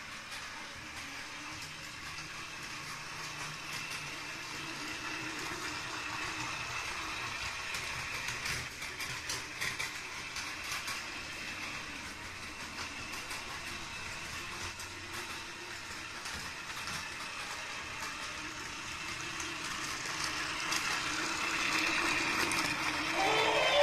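Plarail battery-powered toy train (Keikyu 2100 Blue Sky Train) running on plastic track: a steady motor whir with light clicks from the wheels, growing louder near the end as the train comes close.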